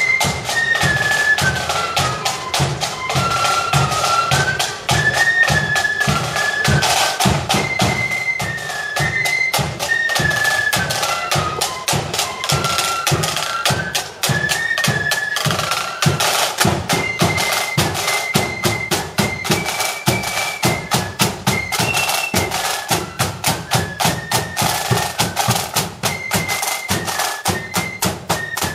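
Marching flute band playing a tune in unison on flutes over a steady marching drum beat.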